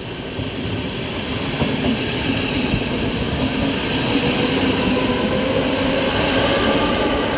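Czech Railways double-deck electric passenger train running past on the rails, wheel and rail noise growing louder over the first few seconds and then holding steady, with a steady hum underneath and a few knocks.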